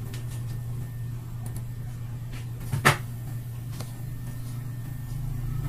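Computer mouse clicking a few times over a steady low hum, with one sharp, louder click about three seconds in.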